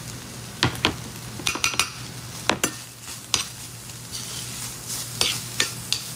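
A utensil stirring a pan of sizzling stir-fried gochujang (bokkeum gochujang), with a steady frying hiss and sharp clinks and scrapes against the pan every second or so.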